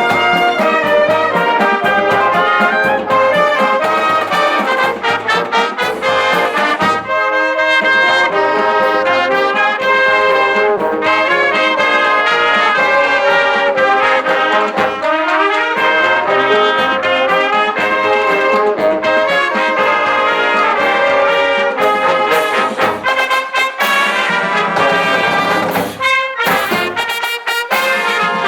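High school marching band playing a march: trumpets and trombones carry the melody over a steady drum beat.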